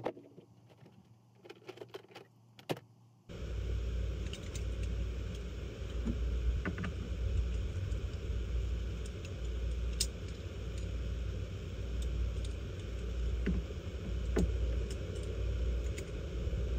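A few small clicks and clinks of tools and parts being handled. About three seconds in, a steady low engine rumble starts abruptly and carries on under scattered clicks.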